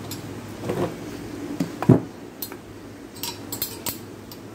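Metal knocks and clinks from an alternator being handled with a long screwdriver inserted into it: a few dull knocks in the first two seconds, the loudest about two seconds in, then a string of sharp metallic clicks.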